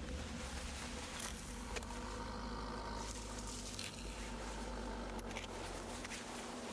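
A steady low drone with faint humming tones and a few soft crackles.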